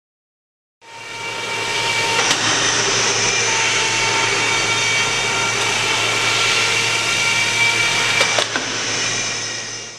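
Makino A88 electrospindle running steadily at high speed: a loud rushing hiss with several steady whining tones over a low hum. It cuts in abruptly about a second in and fades just before the end.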